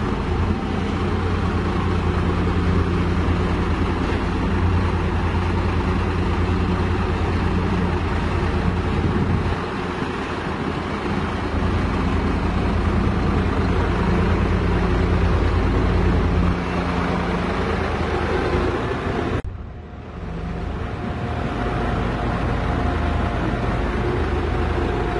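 Heavy diesel engine running steadily, a low drone that shifts in pitch a couple of times and drops out briefly about 20 seconds in.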